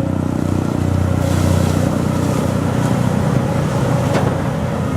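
Excavator's diesel engine running steadily, with a rise in hissy noise about a second in and a couple of sharp clicks later on.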